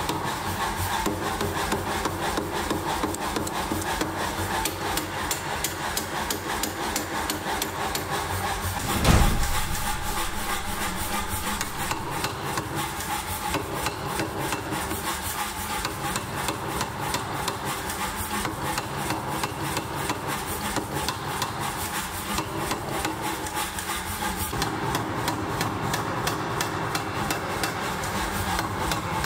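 Mechanical power hammer pounding a red-hot steel bar on its anvil die in a rapid, steady run of blows, with one heavier, louder strike about nine seconds in.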